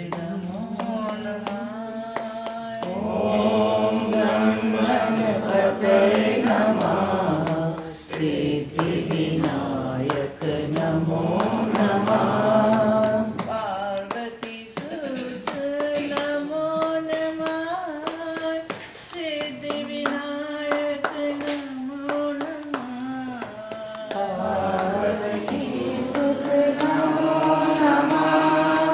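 Voices singing a Hindu devotional bhajan in long, held notes, with hand-clapping keeping time. The singing swells fuller and louder a few seconds in and again near the end.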